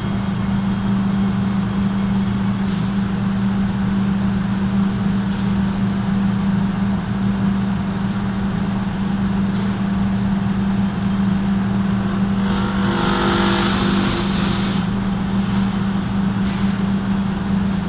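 Industrial dryer's main motor running with a steady low hum, a motor noted as running with an abnormal noise. A few faint ticks come through, and about two-thirds of the way in a hissing, rushing noise swells up for two or three seconds.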